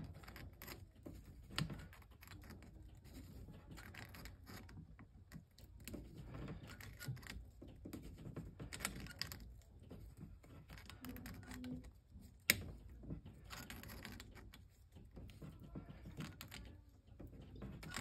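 Pliers gripping and turning the knurled metal strain-relief nut on a Cat8 RJ45 plug to tighten it onto the cable: faint scattered clicks and scraping of metal on metal, with one sharper click about twelve seconds in.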